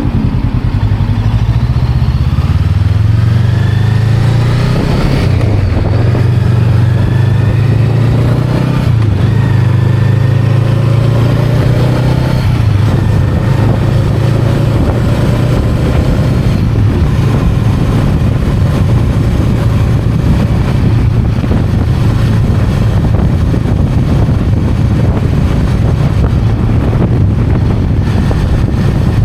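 Honda Rebel 500's 471 cc parallel-twin engine running under way. The pitch rises and shifts a few times over the first dozen seconds, then settles into a steady cruise.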